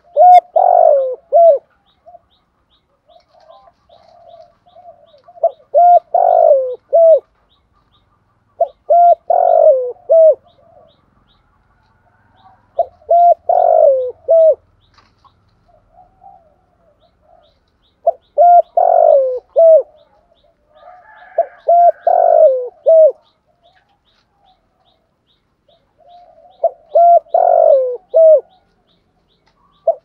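Spotted dove giving its advertising coo: a phrase of several short, hollow coos repeated every three to four seconds, seven phrases in all. Softer single coos fall between the phrases.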